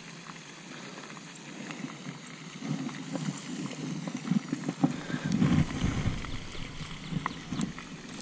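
Irregular rustling, scuffling and light knocks as a small crappie is handled and unhooked aboard a kayak. It gets busier from about two and a half seconds in.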